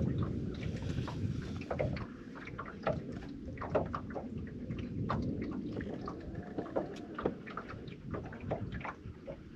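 Low rumbling wind noise on the microphone and small waves lapping against the boat's hull, with scattered light knocks and clicks.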